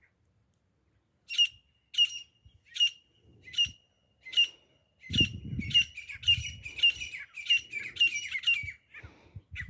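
Grey francolin calling: a shrill, ringing note repeated about every two-thirds of a second, coming faster and overlapping from about five seconds in. A low rumble joins underneath at that point.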